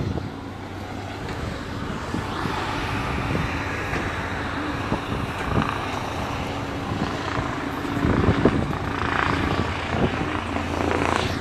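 Helicopter flying overhead: a steady low drone of its rotor and engine.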